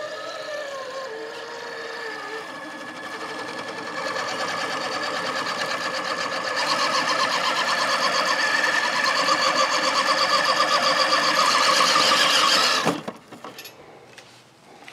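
Traxxas TRX4 Sport RC crawler's electric motor and geartrain whining steadily as it climbs a steep wooden ramp. The whine grows louder and then cuts off suddenly about thirteen seconds in.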